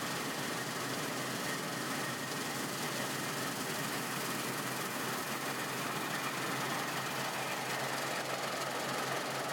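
Claas Lexion 760 combine harvester running steadily, a continuous engine and machinery drone with a constant low hum and a faint high whine.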